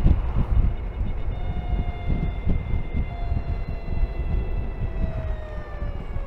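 Electric motorcycle drive motor whining while riding, a thin steady whine that falls slightly in pitch near the end, over a low wind rumble on the microphone.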